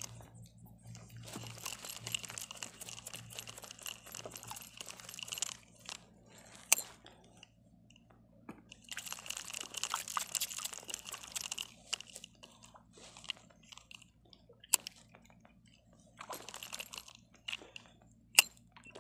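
Small spinning reel being cranked in three bursts of a few seconds each, a fast clicky whir from its gears as a micro jig is worked up from the bottom. A few single sharp clicks fall between the bursts.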